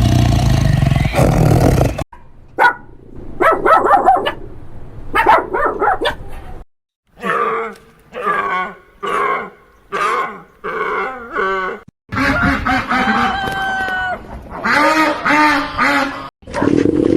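Short animal calls from several clips cut together, repeated with brief pauses between them, after a steady low rumble in the first two seconds.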